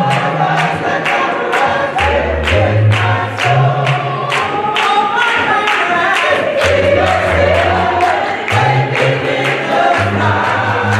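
Gospel choir singing with a band: a steady beat of about three strikes a second under a stepping bass line.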